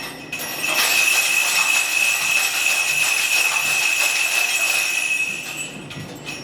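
Turkish crescent (jingling johnny), a pole instrument hung with small brass bells, shaken: a loud jingling of many bells with one clear ringing bell tone held over it, lasting about five seconds and dying away near the end.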